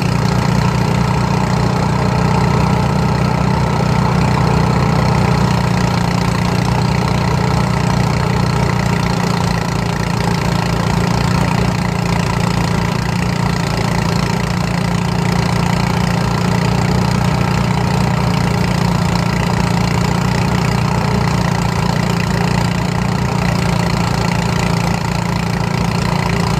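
Engine-driven rice threshing machine running steadily with an even, rapid beat while rice sheaves are fed into its drum.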